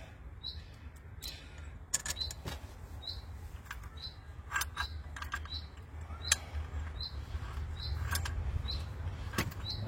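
Scattered sharp clicks and taps of small metal parts being handled, as a screw and washer are tried and fitted to a clamp. Behind them a bird gives a short high chirp over and over, about every three-quarters of a second.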